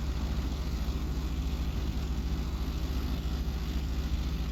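Vehicle engine idling steadily, a low even hum with no change.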